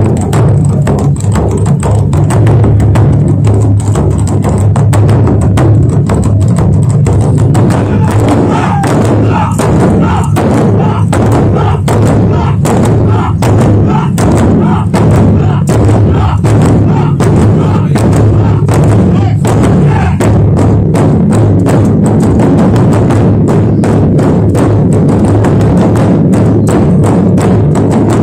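Ensemble of large barrel drums on stands, beaten with sticks by a group of drummers in a fast, driving rhythm of strikes.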